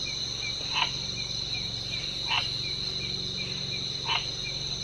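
Night insects, crickets, chirring steadily at a high pitch. A short call cuts through four times, about every one and a half to two seconds.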